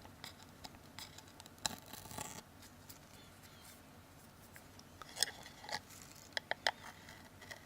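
Small hand tool scraping and clicking on a smartphone's frame while leftover screen adhesive is cleaned from its edges: faint scattered scrapes and sharp ticks, with a short scrape about two seconds in and a run of clicks between five and seven seconds.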